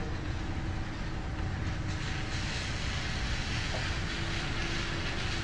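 Steady rain falling on pavement, an even hiss over a low rumble. The hiss grows louder about two seconds in.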